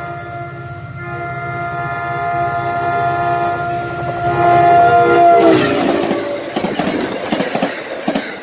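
NJ Transit Atlantic City Line train's locomotive sounding its multi-tone horn. After a short break about a second in, it gives a long blast whose pitch drops as the locomotive passes at speed. The horn gives way to the rush and clatter of the passenger cars going by.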